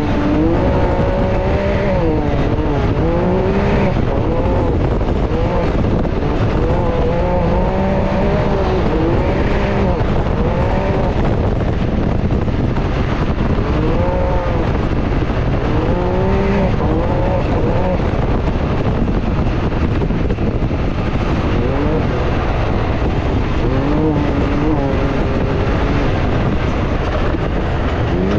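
Can-Am Maverick X3 turbo side-by-side's three-cylinder engine under hard acceleration on a dirt track. The revs climb and drop again every second or two, heard from the cockpit over heavy tyre and chassis noise.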